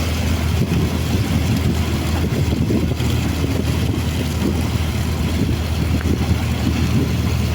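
A boat's engine running steadily at speed, a constant low drone under a broad rush of wind and water noise.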